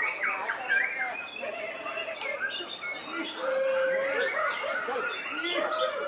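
Caged white-rumped shamas singing, several songs overlapping in a dense mix of whistles and quick chirps, with one long, low held whistle a little past the middle.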